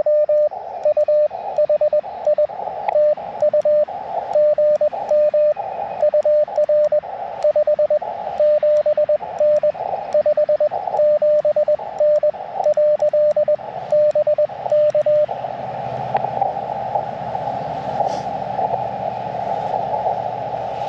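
Elecraft KX2 transceiver sounding Morse code: a single steady tone keyed on and off in dots and dashes for about 15 seconds. It then stops, leaving only the hiss of band noise through the radio's narrow CW filter.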